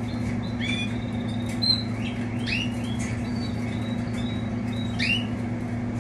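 Caged canaries giving short chirps, scattered a few at a time, over a steady low hum.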